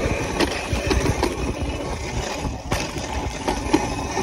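Steady rumbling noise of a bike riding over a dirt track, picked up by a handlebar-mounted phone: wind and vibration buffeting the microphone, with small knocks from the bumps.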